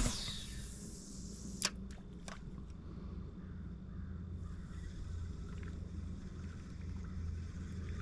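A fishing cast: a swish of rod and line at the start that falls in pitch over about half a second, then two sharp clicks about a second and a half and two seconds in. Under it runs the steady low hum of the boat's motor.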